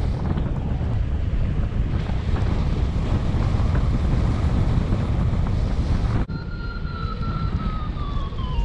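Airflow rushing over the microphone of a paraglider's camera in flight. About six seconds in the rush drops briefly and changes character. After that a thin whistle comes in and slides slowly down in pitch.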